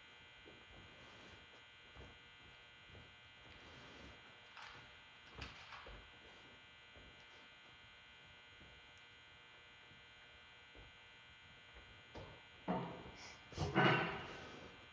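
Steady electrical hum and buzz with faint scattered knocks, and a few louder thuds near the end.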